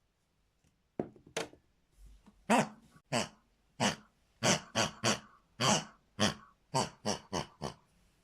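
Pig oinks and squeals: about fifteen short, loud calls in quick succession, with brief gaps between them.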